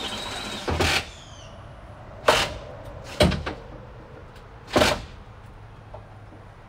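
A short hiss, then four loud bangs at irregular spacing over about four seconds, like heavy parts being knocked or struck.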